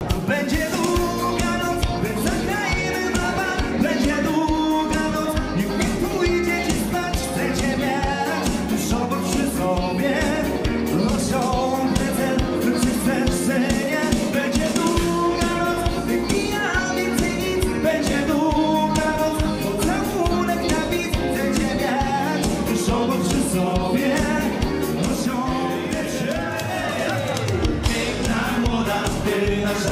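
Upbeat dance music with a steady drum beat and a sung melody.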